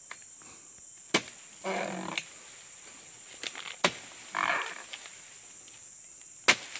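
A dodos palm-harvesting chisel jabbed into the fibrous frond bases of an oil palm. Three sharp chopping strikes come a little under three seconds apart, the last two the loudest.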